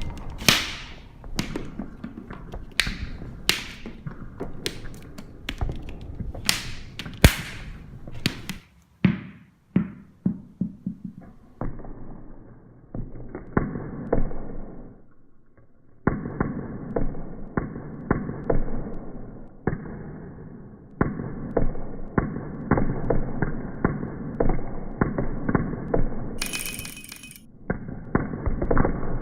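Irregular percussive knocks and clatter from kinetic objects in an experimental noise performance. For the first several seconds the hits are bright and ringing; after a short lull around ten seconds in they continue as a dense, muffled clatter with the highs cut off, broken near the end by a brief hissing burst.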